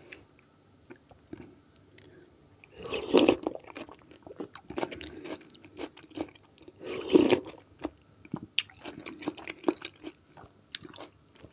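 Close-up eating of cold okroshka soup from a spoon: two louder wet sips about three and seven seconds in, with wet, crunchy chewing and small mouth clicks in between.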